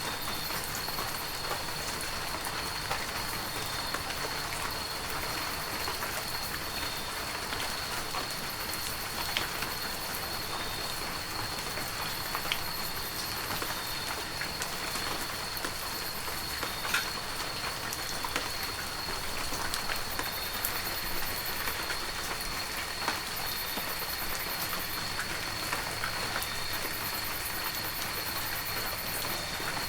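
Heavy rain falling steadily, with scattered sharper drop hits standing out now and then. A thin, steady high-pitched tone runs under it.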